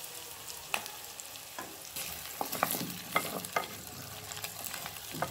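Chopped onions sizzling as they fry in a terracotta pot, stirred with a wooden spoon that scrapes and knocks against the clay several times over a steady frying hiss.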